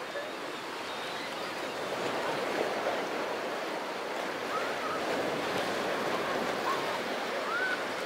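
Small sea waves washing steadily onto a pebble beach, with a few faint short calls over it.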